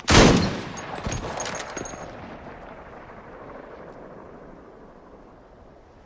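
A loud gunshot right at the start, echoing and rolling away over several seconds, with a weaker crack about a second in. A thin high ringing tone sounds over the first two seconds.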